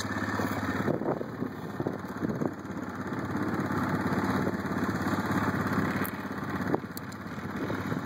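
Honda ATC 200X three-wheeler's single-cylinder engine running, steady and close for about the first second, then farther off with its revs rising and falling as it is ridden across gravel.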